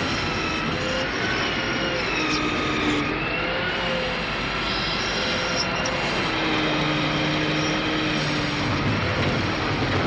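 Rail-mounted log-handling crane running, a steady mechanical noise with several high whining tones that slowly drift up and down in pitch as it travels along its track and swings a log in its grapple.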